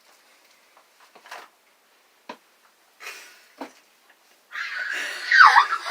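A few faint clicks and breaths, then about four and a half seconds in a person bursts into a breathy, held-in laugh that ends in a high squeak.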